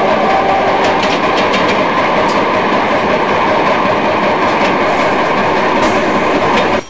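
Interior running noise of a Munich M-type tram under way: a steady rumble of wheels on rails and running gear, with a few clicks over the track. It cuts off abruptly near the end.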